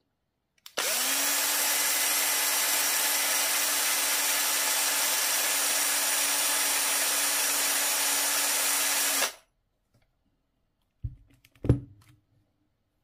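Cordless drill running at a steady speed of about 1,140 rpm with a steady motor whine, spinning up quickly about a second in and cutting off abruptly after about eight and a half seconds. Two short knocks follow near the end.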